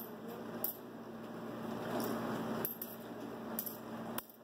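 Pennies being set one by one into a floating aluminium-foil boat: about five light, irregularly spaced clinks of coin on coin. A low steady hum runs underneath.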